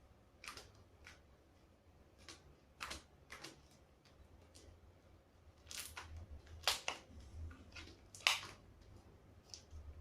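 Close handling noise: irregular light clicks, taps and soft squishes, a cluster of louder ones about two-thirds of the way through.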